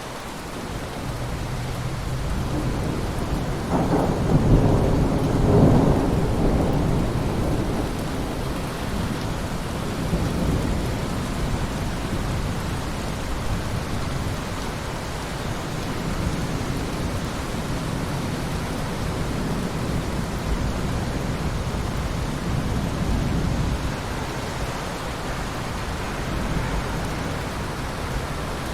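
Steady rain falling in a forest, with a long roll of thunder that builds about a second in, peaks around five seconds in, then rumbles on more weakly.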